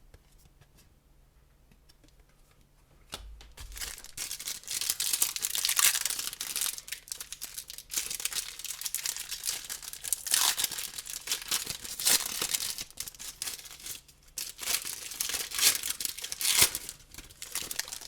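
A trading card pack's wrapper being torn open and crinkled, with paper-and-plastic rustling as the cards are handled; it starts with a soft thump a few seconds in, and the rustling comes in several louder swells.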